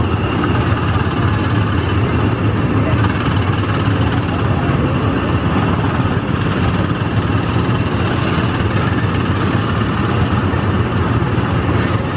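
Small petrol engines of Tomorrowland Speedway cars running steadily, a loud continuous mechanical drone with a low hum.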